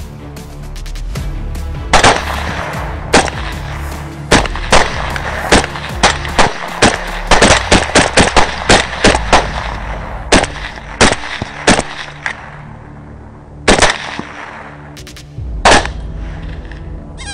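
Rifle gunfire at feral hogs: a string of about two dozen shots, quickening near the middle to about four a second, then slowing to single shots, over background music with steady low notes.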